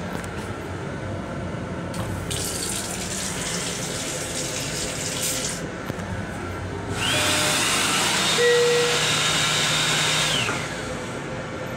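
Train restroom sink with water running into the basin twice: a soft rush for about three seconds, then a louder rush with a steady high whine for about three and a half seconds. A low hum from the moving train runs underneath.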